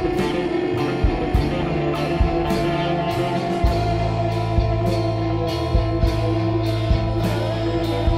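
Psychedelic rock band recording: electric guitar over a steady beat with even, sharp hits about twice a second.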